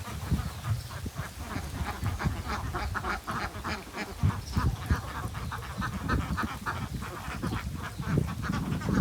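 Ducks quacking, a quick run of many short calls one after another.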